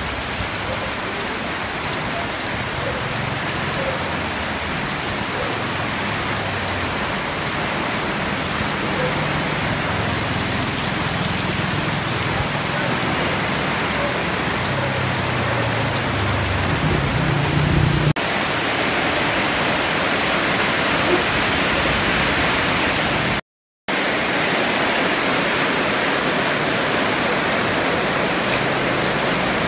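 Heavy storm rain pouring steadily, a dense even hiss, with a low rumble under it until a cut about eighteen seconds in. There is a brief dropout to silence a few seconds after the cut.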